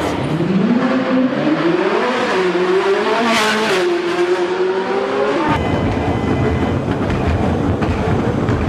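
Ferrari 599 SA Aperta's V12 engine accelerating hard, the revs climbing, dropping back at two gear changes and climbing again. About five and a half seconds in the engine note cuts off and a steady rushing noise takes over.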